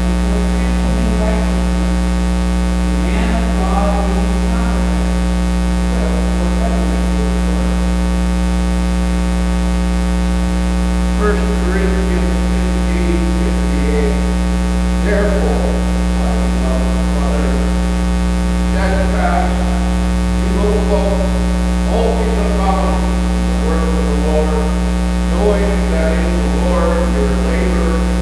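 Loud, steady electrical mains hum from the sound system, with a faint voice behind it now and then.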